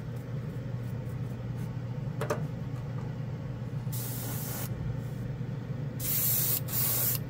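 Gravity-feed airbrush spraying clear coat, hissing in bursts with short breaks from about six seconds in. A short hiss comes near four seconds in, over a steady low hum.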